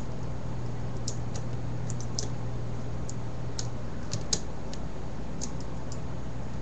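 Irregular, sharp little clicks and taps of plastic Rubik's 4x4 cube pieces being handled and slid into place during reassembly, over a steady low hum.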